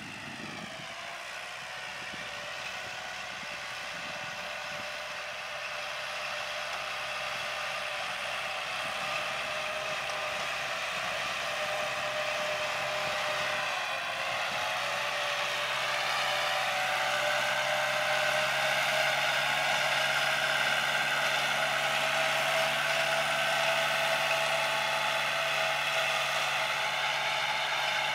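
Kubota L4708 47-horsepower tractor engine running steadily under load while pulling a rotary tiller through the soil. It is a continuous engine drone with a whine, growing louder as the tractor comes closer. The pitch sags briefly about halfway through.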